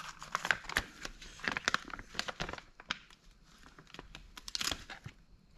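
Plastic packaging crinkling and rustling as a part is taken out of it: a run of sharp crackles for the first couple of seconds, a lull, then another brief flurry near the end.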